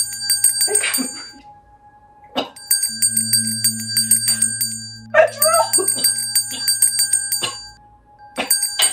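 Comedic background music: a rapid jingling bell-like loop over a steady low hum that cuts in and out, with short cries about five seconds in.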